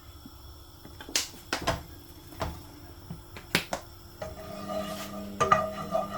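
Kitchen clatter of cookware being set up on the stove: several sharp clicks and knocks. About four seconds in a steady hum starts and keeps going.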